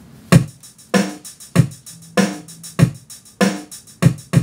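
A recorded music track played back through a full-range PA speaker with the subwoofer not yet brought in, starting a moment in with a steady drum beat of about one hit every 0.6 seconds.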